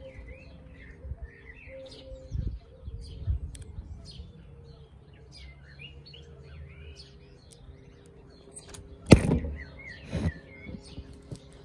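Birds chirping and singing in the background over a faint steady hum. About nine seconds in there is a loud knock as the camera is knocked over, and a smaller knock about a second later.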